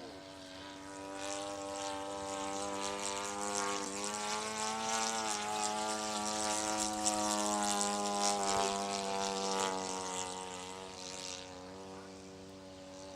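Model aircraft engine and propeller of a radio-controlled scale Sopwith Pup flying past. The engine note grows louder over the first couple of seconds, holds with its pitch wavering slightly, and fades away near the end.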